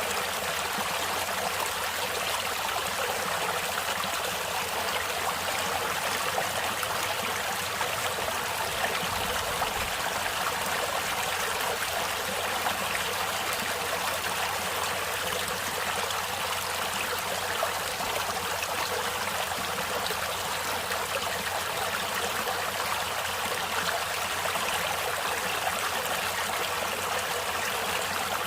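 Natural stream water flowing, a steady even rush with little low rumble that does not change.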